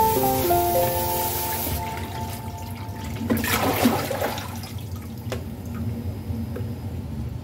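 Kitchen tap running into a plastic basin over bean sprouts in a colander, cut off about two seconds in. Then a short rush of water as the colander is lifted out and drains, and a light knock of plastic a little later.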